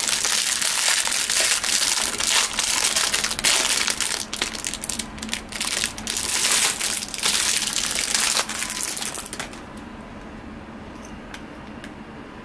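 Thin clear plastic wrapping crinkling loudly as a capsule-toy miniature is unwrapped by hand, a dense run of crackles and snaps that stops about three-quarters of the way through.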